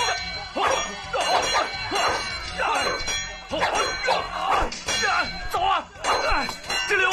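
Men's shouts and fight cries during a martial-arts brawl, with a man shouting '走啊' ('Go!') near the end.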